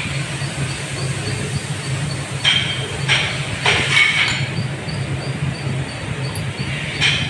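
Steady low hum of lathe machinery with a faint, fast, regular ticking, broken by a few short metallic clanks and scrapes as the steel lathe chuck and an adjustable wrench are handled, a cluster of them around the middle and another near the end.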